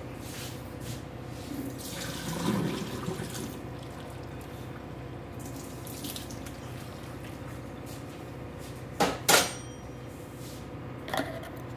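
Cooking water being poured off a pot of boiled potatoes into a kitchen sink: a steady pouring splash. Two sharp knocks come about nine seconds in, and a lighter one near the end.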